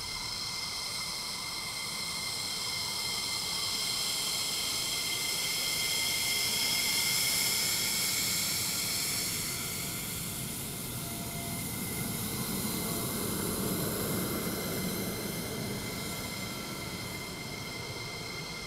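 F-16 fighter jets taxiing past at low power: a steady high-pitched turbine whine over a rushing hiss, swelling as each jet passes, loudest about seven seconds in and again around fourteen seconds.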